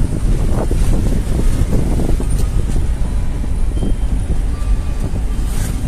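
A vehicle on the move, with heavy wind rumble on the microphone.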